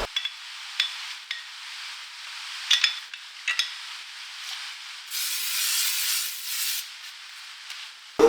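Workshop handling noises: a few light clicks and taps, then a hiss lasting about two seconds starting about five seconds in, thin and without any bass.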